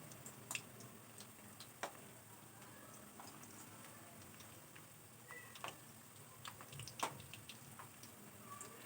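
Potato-semolina snacks frying in oil, with faint irregular crackles and pops over a low hiss.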